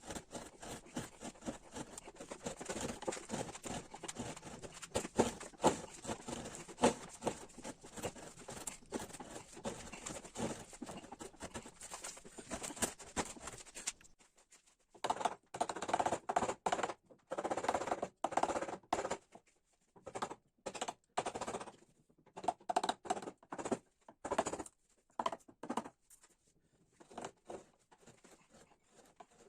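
Hand carving tools cutting into ash wood. For about the first half there are dense small clicks and scraping, and after that come separate short cutting strokes with brief pauses between them.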